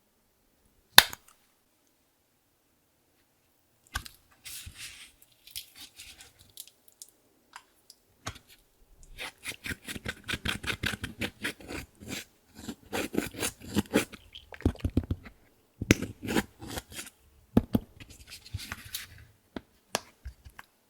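Clear slime being kneaded and squished by hand, making rapid sticky crackling pops in irregular bunches. A single sharp click comes about a second in.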